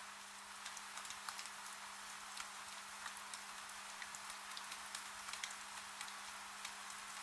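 Steady rain hiss with many small drops ticking irregularly on a window pane, over a faint steady low hum.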